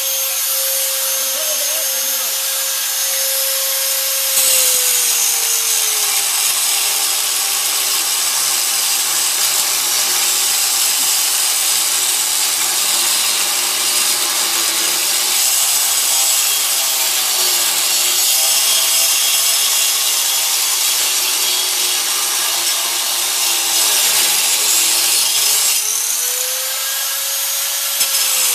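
Electric angle grinder spinning freely, then pressed onto steel from about four seconds in, its motor pitch dropping under load as it grinds with a harsh rasp, to cut out a seized U-joint clamped in a vise. Near the end it lifts off and the motor spins back up to full speed.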